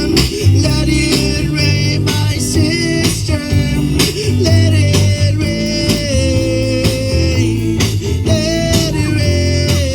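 Live worship band playing an instrumental passage: guitar over bass and regular drum hits, with a long, slightly wavering held lead line.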